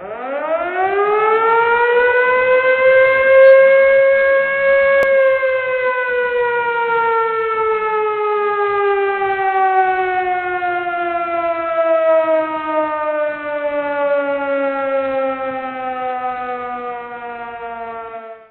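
Civil-defense-style alarm siren sounding one long wail. It rises in pitch over about four seconds, then slowly falls for over ten seconds and cuts off suddenly at the end.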